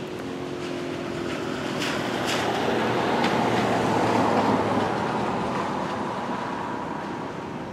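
A vehicle passing by: a broad rumble and rush that swells to a peak about halfway through and then fades, with a couple of sharp clicks as it builds.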